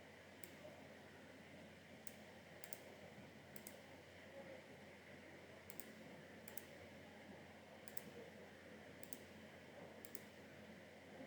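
Faint computer mouse clicks, about ten, spaced irregularly over quiet room hiss.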